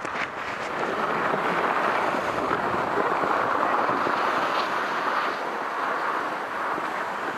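Steady rush of wind over the camera microphone with the hiss of sliding on snow, during a downhill run.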